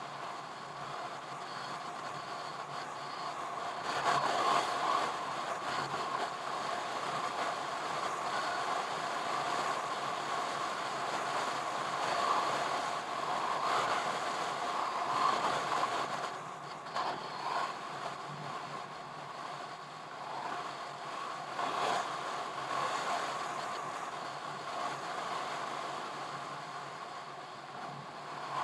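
Car driving along a highway: steady engine and road noise with a droning hum, getting a little louder about four seconds in and then swelling and dipping slightly.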